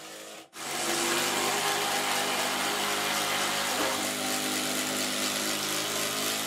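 Cordless combi drill running steadily at constant speed, driving a long screw up through the timber hatch frame. It starts about half a second in.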